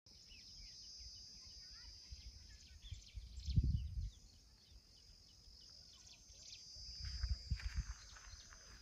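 Rural outdoor ambience: a steady high-pitched insect drone with scattered bird chirps. About a third of the way in and again near the end, low rumbling buffets on the microphone.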